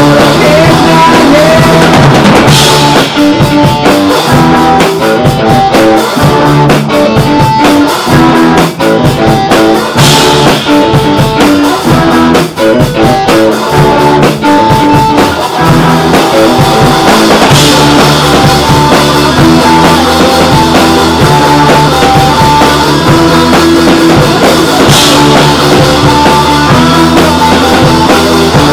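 Small rock band playing live: drum kit, electric guitars and bass, recorded very loud. Cymbal crashes stand out about every seven seconds.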